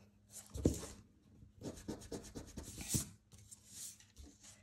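Pencil drawing on paper: a run of short scratchy strokes, with a soft knock about half a second in and another near three seconds.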